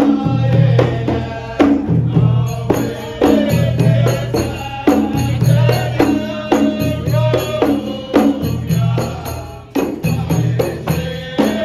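Men's group chanting together in the Emirati Al-Ayala style, over a steady beat of large drums and hand-struck frame drums.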